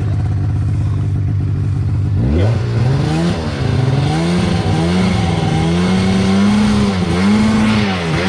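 Ski-Doo Summit snowmobile engine running at a low steady pitch, then revved hard about two seconds in and held at high revs, the pitch wavering and dipping repeatedly. It is held on heavy throttle to push the sled through deep snow, where it barely moves unless revved hard.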